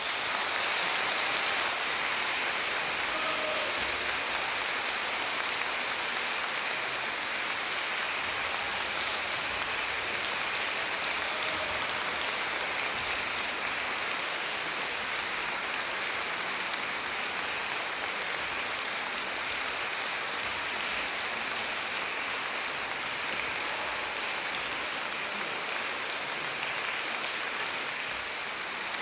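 Concert audience applauding steadily at the end of a performance.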